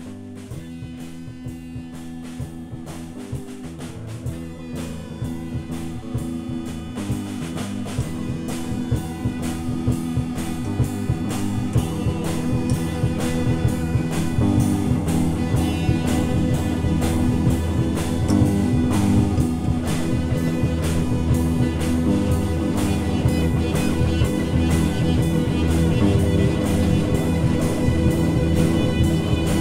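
Instrumental psychedelic rock jam on electric guitars and drum kit, growing steadily louder and busier as the drums fill in.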